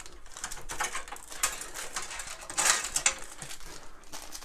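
Small plastic bag of case screws being handled: plastic rustling and crinkling with light clicks of the screws inside, loudest burst a little after halfway.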